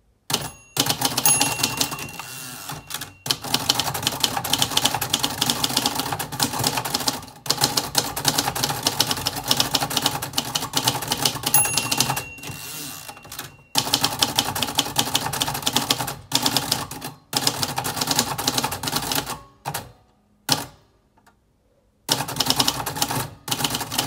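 Fast typing on a 1975 Royal Custom III manual portable typewriter: rapid key and typebar strikes in long runs, broken by short pauses. A bell rings about a second in and again about halfway, the margin bell warning of the line's end.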